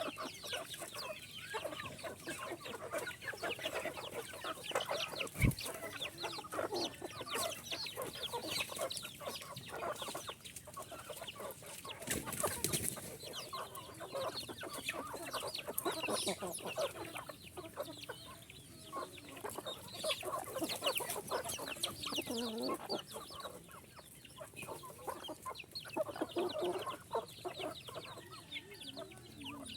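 Chickens clucking and calling in many short overlapping calls. There is a single sharp knock about five and a half seconds in, and a brief burst of noise about twelve seconds in.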